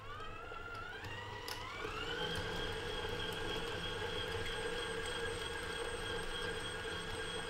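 Electric tilt-head stand mixer switched on and whipping cubed butter in its steel bowl. The motor's whine rises in two steps over the first two seconds or so as the speed is turned up, then holds steady.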